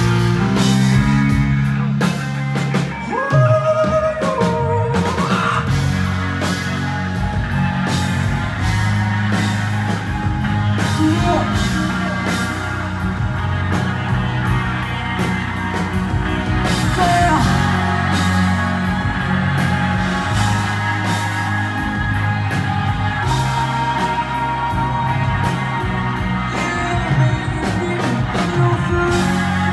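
Live concert music played loud: a band with bass, drums and sung vocals over it.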